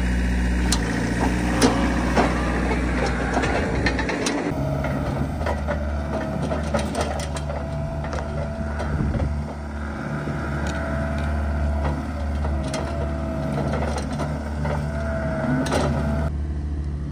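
Diesel engine of a John Deere compact track loader running as it lifts straw bales on its bale forks, with scattered clicks and knocks. From about four seconds in, a wavering whine runs over the engine.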